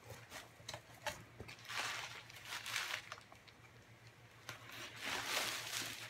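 Packing paper crinkling and rustling as it is pulled out of a cardboard box, in two longer rushes with small clicks and taps between.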